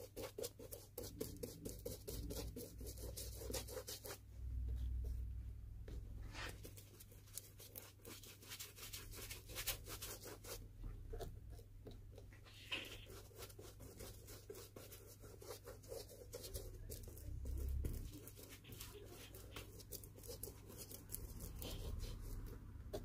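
Bristle glue brush scrubbing glue over a sanded cork-filled shoe bottom: faint, rapid scratchy strokes that pause briefly twice, with a couple of dull low thumps among them.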